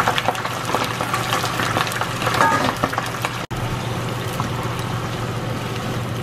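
Chicken gizzards deep-frying in olive oil in a frying pan: a steady, crackling sizzle of hot oil bubbling around the pieces as more gizzards are dropped in. The sound cuts out for an instant about three and a half seconds in.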